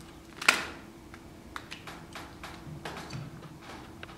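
Small clicks and taps of a tool working an iPhone 5's screen loose from its frame. One sharp click about half a second in is the loudest, followed by scattered fainter ticks.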